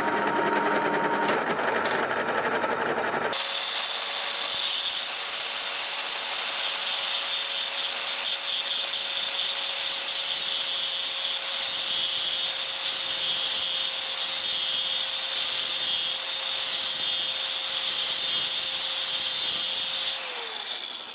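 Grinding wheel on a power tool running against the tip of a steel screw held in a lathe, a steady motor whine with a harsh grinding hiss. It starts abruptly about three seconds in and winds down with a falling pitch near the end.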